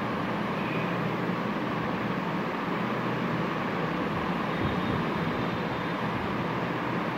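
Steady background noise: a constant hum and rushing hiss with no distinct events.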